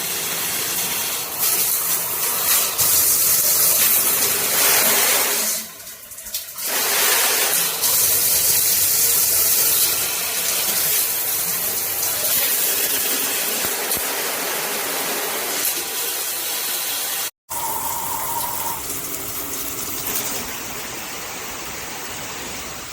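Water spraying steadily from an Aiscsc 8-spray-mode handheld shower head, a dense hiss that falls away for about a second some six seconds in, then returns.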